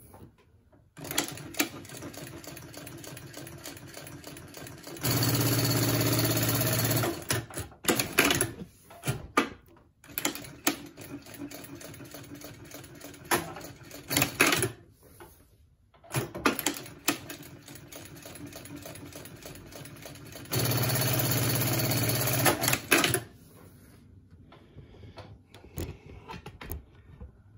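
Consew 2206RB-14-7-DD direct-drive walking-foot lockstitch sewing machine stitching through thick, layered fabric. It runs at a slow start speed for a few seconds, then at full speed and much louder for about two seconds, with clicks and short stops between runs. The pattern happens twice.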